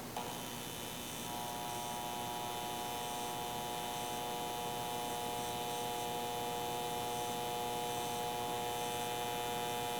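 Steady electrical hum from a powered-up MTH RailKing Imperial ES44AC O-gauge model locomotive and its track, with a small click just after the start and a few high, even tones that grow slightly stronger about a second in. This is the idle hum before the model's sound system plays its start-up sounds.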